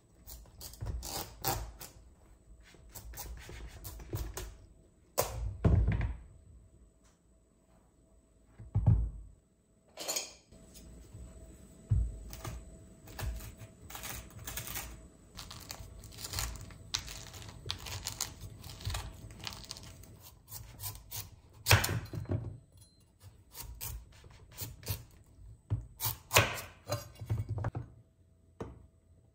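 Household objects being handled: irregular knocks and thuds as things are picked up and set down, with rustling and scraping in between and a faint steady hum underneath.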